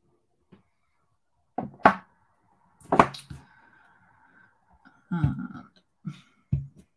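Knocks and dull thuds of a clear acrylic stamp block and craft tools being set down and handled on a desk: sharp knocks about one and a half to three seconds in, then a few low thuds near the end. A faint steady two-note tone sounds in between.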